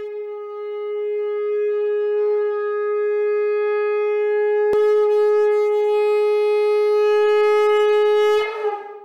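Conch shell (shankh) blown in one long steady note rich in overtones for about eight seconds, ending with a short wavering break-off near the end. A single faint click is heard about halfway through.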